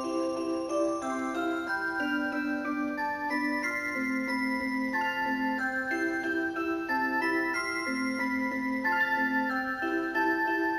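An alarm clock's built-in electronic melody plays a Christmas song in several voices, with a bass line under the tune.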